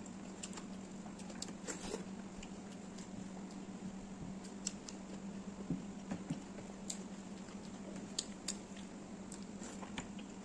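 Eating by hand: soft chewing and small wet mouth clicks, with fingers mixing rice on a plate, heard as scattered short clicks. A steady low hum runs underneath.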